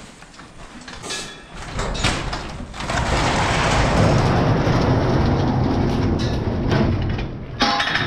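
Large corrugated metal barn door being pushed up open by hand, rattling and rumbling along its track for several seconds, after a couple of short metal knocks.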